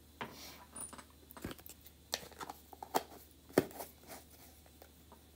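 Craft supplies handled on a tabletop: a few short, sharp clicks and taps, the loudest about three and a half seconds in, with faint rustling between.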